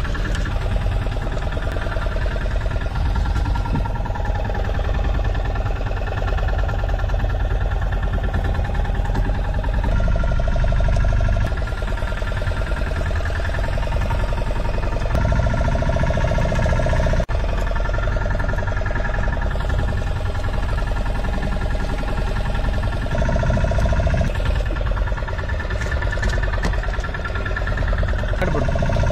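Fishing boat's engine running steadily close by, a loud low drone whose pitch shifts a little a few times.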